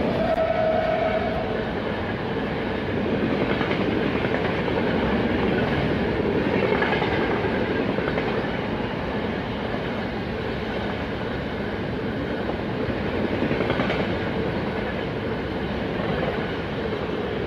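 Express passenger train passing close by at speed: a steady rush of noise with wheels clattering over rail joints as the coaches go by. The electric locomotive's horn is heard ending in the first second or so.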